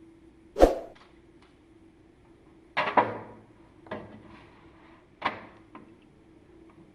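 Four separate knocks and clatters of hard objects being handled, a second or two apart, over a faint steady hum.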